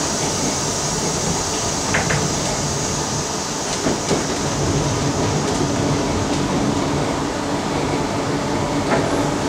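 Steady hum and hiss of a London Underground District line D Stock carriage standing at a platform, its onboard equipment running, with a few faint clicks.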